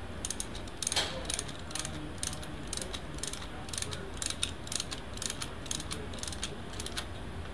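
Ratcheting ring spanner clicking as it is swung back and forth on a nut, a steady run of clicks about twice a second, often in pairs, stopping shortly before the end.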